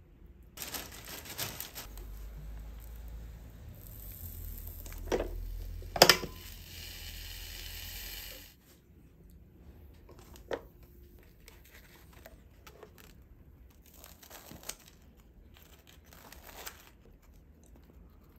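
Plastic packaging crinkling and tearing, with a few sharp knocks; the loudest knock comes about six seconds in. A low hum runs under the first half and stops about eight and a half seconds in.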